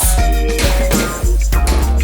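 Background music: a funk-style track with bass, drums and guitar.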